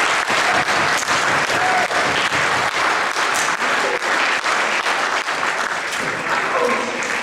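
Audience applauding: many hands clapping in a dense, steady patter that eases a little near the end.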